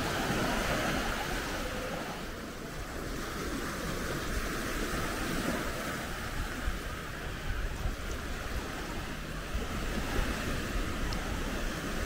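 Surf washing onto the beach as a steady rushing wash that swells and eases, with wind buffeting the microphone.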